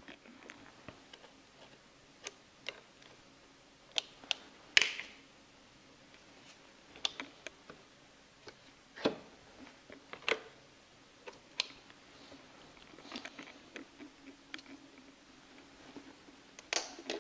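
Scattered sharp clicks and light metallic clacks of spring hose clamps and hose-clamp pliers as rubber coolant hoses are refitted to the EGR cooler, over a faint steady hum.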